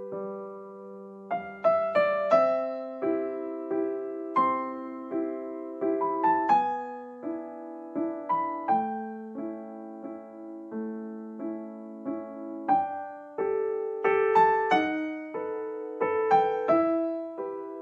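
Background music: soft piano or electric piano playing gentle chords and a melody, each note struck and left to ring out.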